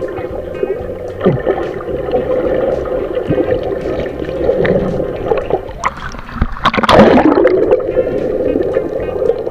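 Water gurgling and sloshing around a fishing boat, with a louder rushing burst about seven seconds in.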